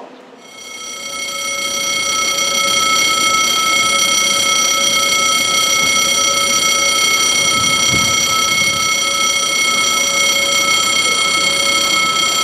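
Railway level-crossing warning bell ringing steadily and without pause, warning of an approaching train.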